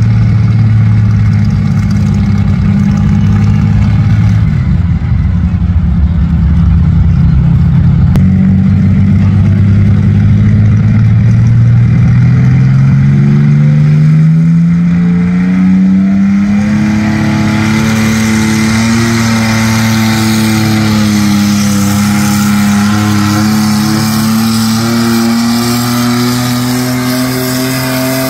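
Naturally aspirated super stock pulling tractor's engine running loud, holding steady at first. From about ten seconds in its pitch climbs steadily as it hooks into the weight sled and pulls, then holds high for the rest of the pull.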